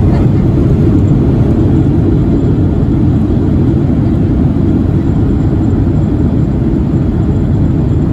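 Steady low rumble of a Boeing 737-800's CFM56-7B engines and rushing air, heard from inside the passenger cabin.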